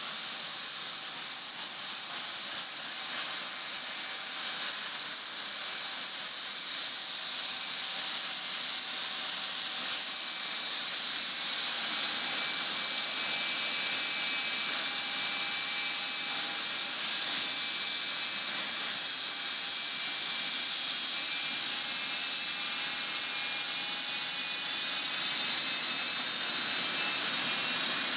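Jet dragster's turbine engine running with a steady high whine over a roar, its pitch rising a little about a third of the way in and again near the end as it spools up before a run.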